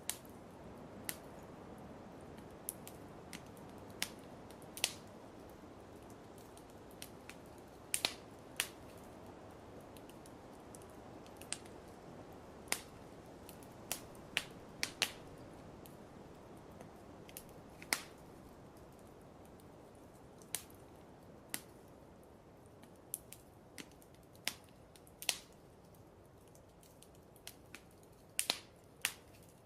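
Wood fire in a fireplace crackling: irregular sharp pops and snaps, roughly one a second and some in quick pairs, over a steady low hiss.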